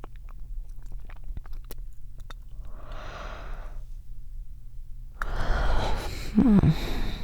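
A woman breathing close to the microphone, with small wet mouth clicks and a soft breath out. Then comes a long breathy yawn with a voiced, falling tone near the end, a sign of tiredness.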